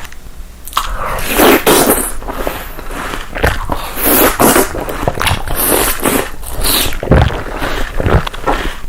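Close-miked biting and chewing of food, with irregular bites and mouth sounds starting about a second in.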